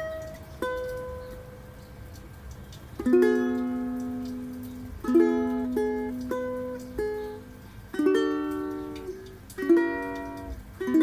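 An acacia World of Ukes Pioneer ukulele being played: a few single plucked notes, then strummed chords one every second or two, each ringing out and fading.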